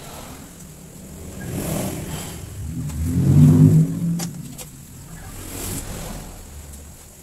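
A passing motor vehicle's engine swelling up and fading away over a few seconds, with a smaller swell after it. Two sharp clicks come just after the loudest point.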